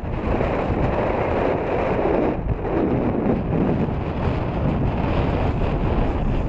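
Strong wind buffeting the microphone: a loud, steady rush that swells in a gust between about one and three seconds in.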